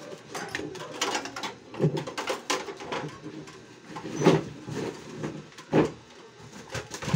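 Metal parts of a Micromatic portable gas stove being handled and fitted: scattered clinks and knocks of the burner ring and fittings against the steel frame, with two louder knocks about four and six seconds in.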